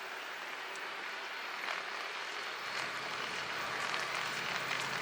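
Steady rushing noise of the Vinnufossen waterfall, growing a little louder over the few seconds.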